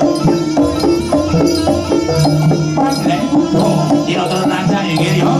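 Music with drums and melodic instruments.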